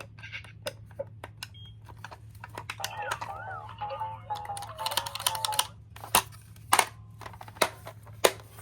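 Hard plastic toy cars clicking and clacking against each other and the track in quick, irregular knocks. A short electronic tune plays for a couple of seconds in the middle.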